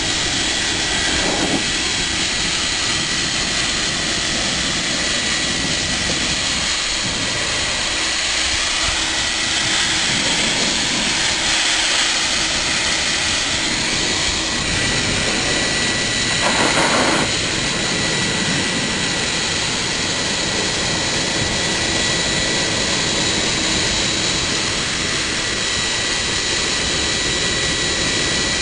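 High-velocity dog dryer (blaster) running steadily: a loud, even rush of air with a constant high whine, briefly louder a little past halfway.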